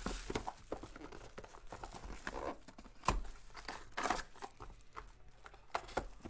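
Plastic shrink-wrap crinkling and cardboard being handled as a sealed 2016 Panini Pantheon baseball card box is unwrapped and its lid opened, with a couple of sharp taps about three and four seconds in.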